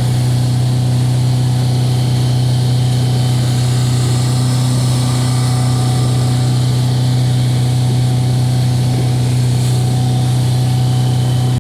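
Small motorboat's engine running steadily under way: an unchanging low drone with a hiss of wind and water over it.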